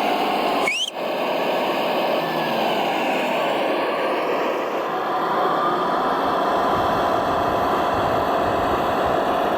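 Radio-controlled model construction vehicles running, with a steady whine from their electric motors and gearboxes. A short rising whine and a brief drop in level come about a second in.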